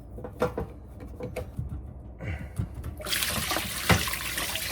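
Light clicks and knocks as the hose clamp on a washing-machine drain pump is worked loose. About three seconds in, the washer's leftover water suddenly starts pouring out of the opened pump hose into a shallow pan with a steady splashing hiss.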